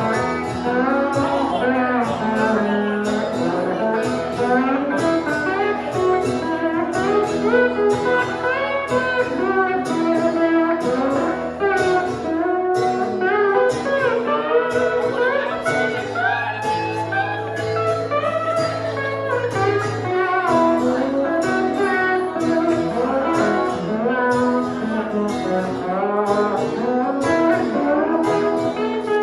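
Live country song played by a guitar duo, with many quick bending guitar notes and a low note held for a few seconds in the middle.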